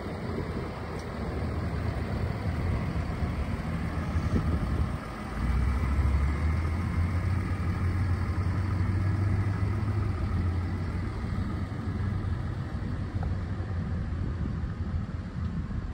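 Ford F-150 pickup's engine idling: a steady low hum that gets louder and fuller about five seconds in and then holds.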